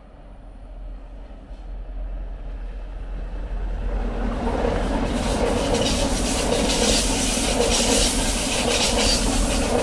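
SBB ETR 610 Astoro electric multiple unit approaching round a curve and passing close by. The running noise of wheels on rail grows steadily over the first four to five seconds, then stays loud as the coaches go past.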